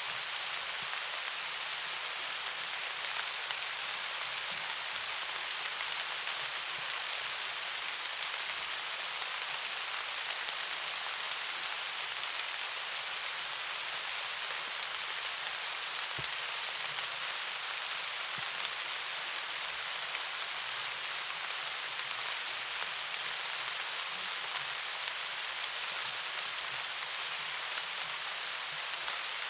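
Steady rain falling, an even hiss with the odd distinct drop ticking through it.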